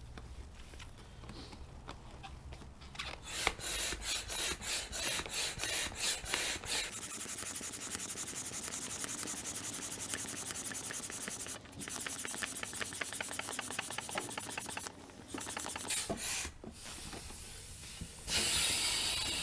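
Air pump inflating an inflatable kayak's floor chamber. The airy pumping strokes come about three a second at first, then run on faster and more evenly, and a louder steady hiss of air begins near the end.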